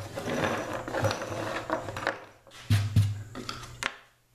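Small metal hardware, 1/4 inch bolts, washers and wing nuts, clinking and sliding as it is set down on a plywood bench top, with two dull thumps about three seconds in and a sharp click just after.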